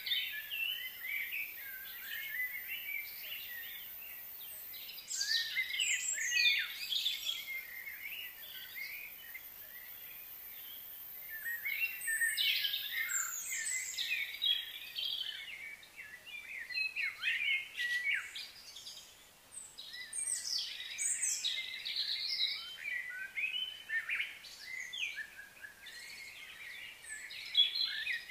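Wild birds singing and chirping in repeated bursts of short, overlapping calls, with quieter stretches about a third of the way in and around two-thirds of the way through.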